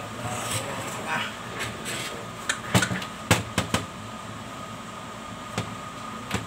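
Metal parts of a carbon brush holder assembly knocking and clacking against a steel workbench as it is lifted and turned by hand: a cluster of sharp clacks a few seconds in, then two more single knocks near the end, over a steady hum with a constant high tone.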